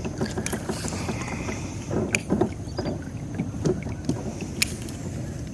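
Kayak on the water: a steady low rumble of wind and water around the boat, with a few scattered sharp clicks and knocks.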